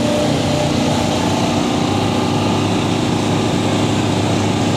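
A small engine running at a steady speed, an unchanging drone.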